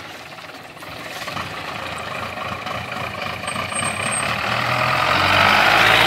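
A Tata Sumo SUV driving up and passing close by, its engine and tyres growing steadily louder to a peak near the end.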